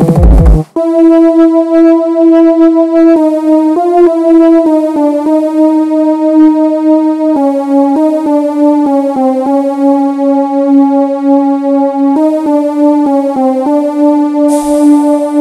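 Synthesizer music: a loud drum passage cuts off abruptly under a second in, then a lone keyboard-like synth plays a slow melody of held, stepping notes. A hiss swells in near the end.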